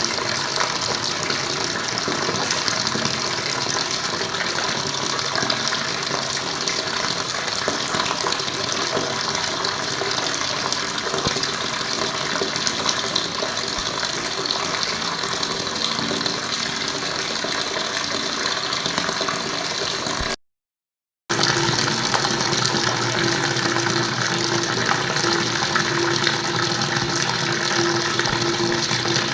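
Flowing water splashing steadily. It cuts out completely for about a second two-thirds of the way through, then resumes with a faint steady hum underneath.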